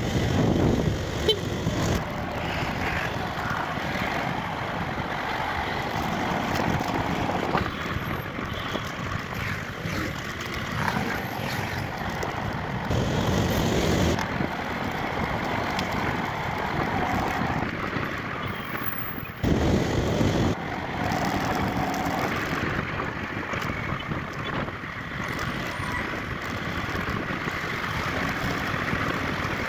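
On-board sound of a motorcycle riding in city traffic: the bike's engine mixed with a rushing noise of road and wind, changing abruptly a few times.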